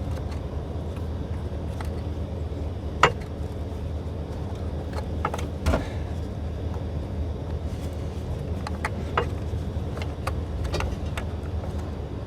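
Scattered sharp metal clinks and knocks from tools and suspension parts being handled while a new lower control arm is worked into place, the loudest about three seconds in and another near six seconds, over a steady low rumble.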